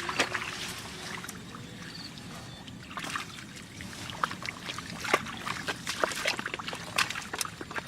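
Water trickling and sloshing, with scattered small splashes and drips that grow busier from about three seconds in.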